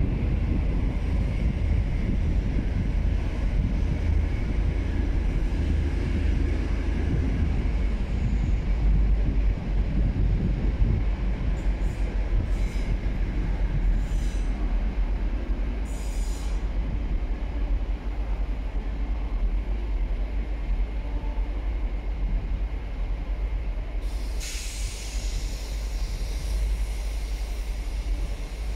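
LNER InterCity 225 train (electric Class 91 with Mk4 coaches) running slowly over curved station pointwork, its wheels giving a steady low rumble. A few short, high wheel squeals come on the curves around halfway through. A longer squeal starts near the end as a multiple unit comes in.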